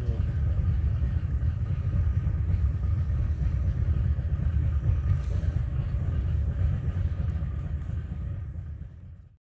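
Steady low rumble of a boat moving along the river, with no clear pitch to it, fading out near the end.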